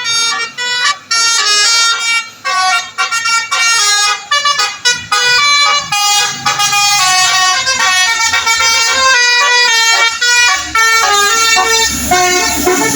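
Bus telolet horn, a set of multi-tone air horns, playing a fast melody of stepped notes. A low rumble joins under it near the end.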